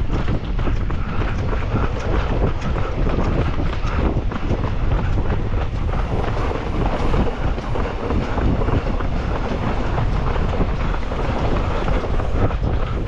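Strong wind buffeting the microphone of a runner's body-worn camera, giving a steady, heavy rumble.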